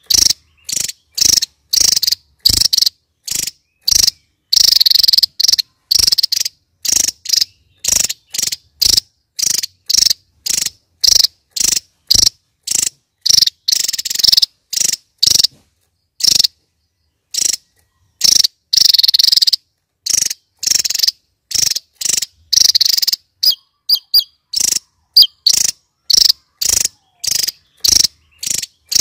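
Javan tesia singing: sharp, high-pitched notes repeated rapidly, about two to three a second, with a few longer phrases in between.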